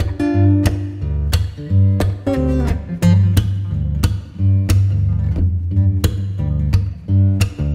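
Background music with a steady beat of about one and a half strokes a second over deep, sustained bass notes.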